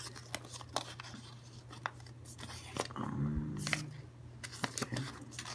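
White paper packaging of a card bundle being pulled open by hand: scattered crisp paper crackles and small snaps of tearing, over a faint steady low hum.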